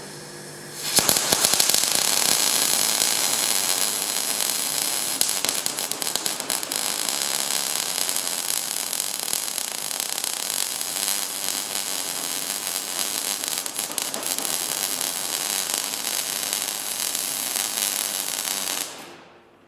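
MIG welding arc from a transformer-type MIG welder running 1.0 mm wire in short-circuit transfer, crackling and spitting steadily; it starts about a second in and cuts off abruptly near the end. The wire feed speed is being turned by hand during the weld, taking the arc through too little wire, where it hisses and spits, toward the even crackle of a correct setting.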